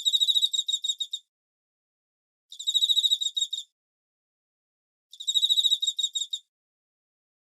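A cricket chirping: trains of rapid, high-pitched pulses about a second long, repeating about every two and a half seconds with silence between. Three trains fall in full, and a fourth begins at the very end.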